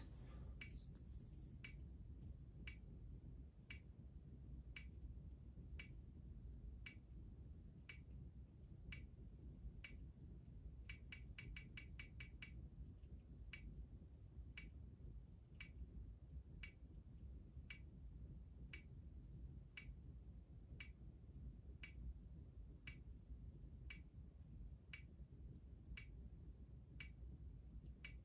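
Online spinner wheel's tick sound effect, one short click about every two-thirds of a second as the wheel turns slowly, with a quick run of clicks about eleven seconds in, over faint low room noise.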